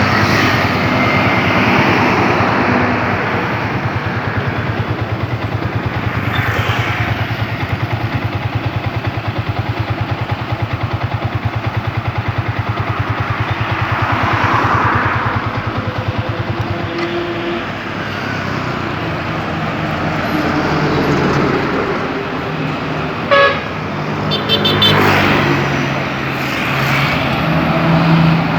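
Road traffic with a bus's musical multi-tone 'telolet' horn sounding. An engine runs with a steady pulsing note for the first half, vehicles pass, and there is a short sharp sound late on.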